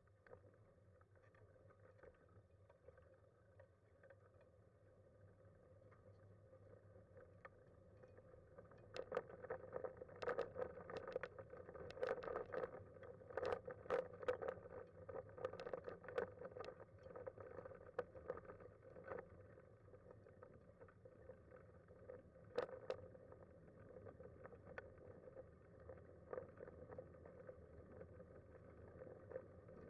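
Kuschall K-Series manual wheelchair with a FreeWheel front wheel rolling along an asphalt road: a faint steady rumble from the tyres. From about nine seconds in come many sharp clicks and rattles from the chair, thinning out later.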